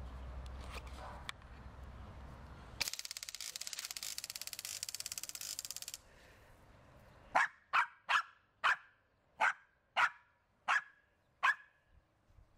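A motion-activated lawn sprinkler fires, a hissing spray with rapid ticking that lasts about three seconds, then a small dog barks about eight times in quick succession.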